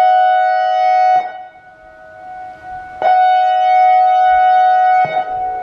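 ACA Alertronic AR-1600 electronic siren sounding a steady, rich two-note tone in pulses: it cuts off about a second in, stays off for about two seconds, then sounds again for about two seconds before cutting off near the end.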